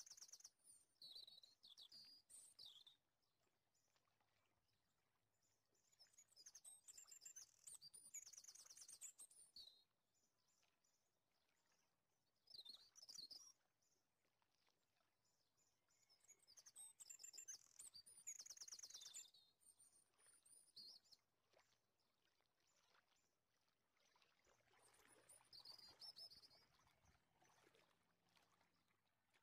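Faint birdsong: high chirps and quick trills in several short bouts, with quiet gaps between.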